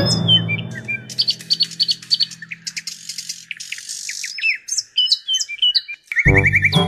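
Birds chirping and tweeting in many short, quick calls, over the fading tail of background music; loud background music starts again about six seconds in.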